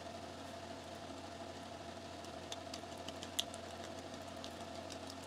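Electric fan running with a steady hum. A few light clicks sound over it in the second half, one sharper about three and a half seconds in.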